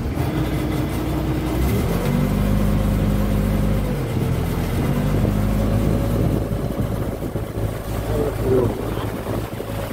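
Small wooden boat's engine running under way. Its note rises about two seconds in as it picks up speed, then runs steadily.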